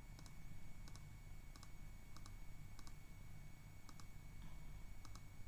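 Computer mouse clicking, about eight short, light clicks spaced roughly half a second to a second apart, some heard as a quick double click, over a faint steady room hum.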